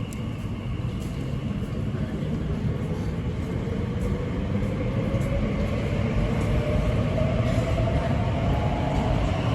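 Elizabeth line Class 345 train accelerating: a low running rumble under a motor whine that rises steadily in pitch, the whole sound growing louder.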